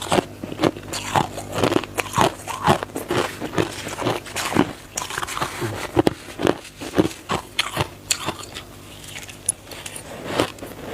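A person biting and chewing crunchy crushed ice close to the microphone: a fast run of crisp crunches that eases off briefly near the end and then picks up again.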